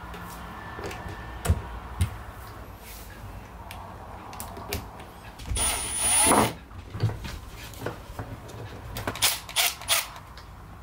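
Cordless Milwaukee M12 driver running for about a second about halfway through, its motor pitch wavering as it drives a screw into the angle grinder's housing. Clicks and knocks of tools and parts being handled come before it, and a cluster of sharp clicks near the end.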